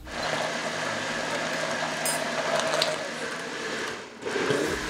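Electric countertop blender motor running steadily as it blends a thick batter of eggs, milk, oil, tapioca starch and cheese, then stopping about four seconds in. A brief low sound follows near the end.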